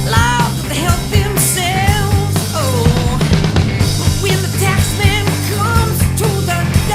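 Rock song with a singer over drums and bass guitar: background music.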